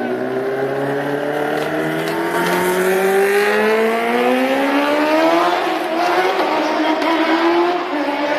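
Kawasaki Ninja H2 engine accelerating hard, its pitch climbing steadily for about five seconds, dropping at a gear change around six seconds in, then climbing again.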